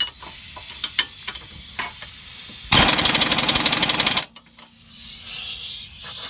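Impact wrench hammering for about a second and a half as it snugs the spindle-to-strut bolts tight, preceded by a few small metallic clicks.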